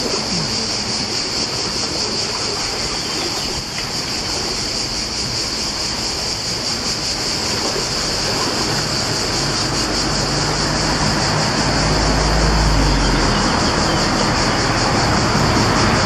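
Steady, high-pitched chorus of insects buzzing without a break. A low rumble swells in about ten seconds in and stays to the end.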